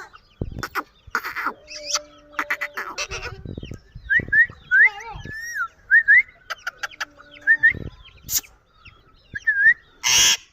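Pet parakeets calling in short, rising chirps, repeated several times, mixed with scattered clicks and knocks. A loud, brief burst of noise comes near the end.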